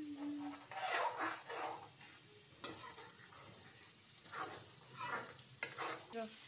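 Steel spoon stirring and scraping a thick ground bottle gourd and onion paste around a metal kadhai in irregular strokes, with the paste sizzling in hot oil.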